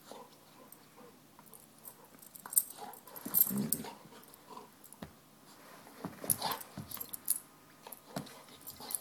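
Golden retriever gnawing a hard black rubber Goughnuts Maxx ring toy: irregular clicks and scrapes of teeth on rubber, loudest in bursts about three and a half and six and a half seconds in.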